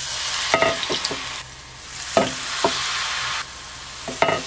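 Battered mugwort sprigs sizzling in hot frying oil. The hiss swells each time another piece is lowered in, three times in all, with several sharp clicks of the metal tongs.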